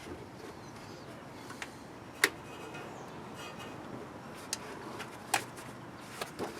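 A few sharp clicks and knocks of a flat screwdriver being worked against the belt tensioner, the loudest about two seconds in and another about five seconds in.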